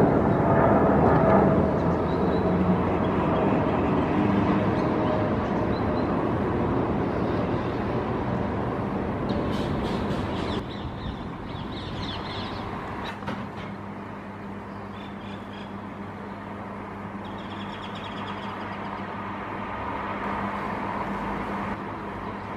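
Outdoor rumble that gradually fades, with a few crow-like caws around the middle.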